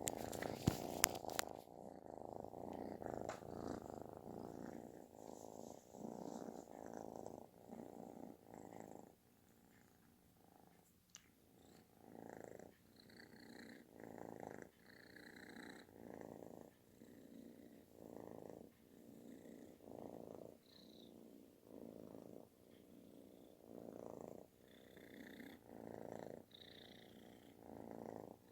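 Calico kitten purring loudly with a snore-like rumble, swelling and fading with each breath about every second and a half. A few sharp clicks come in the first second or so.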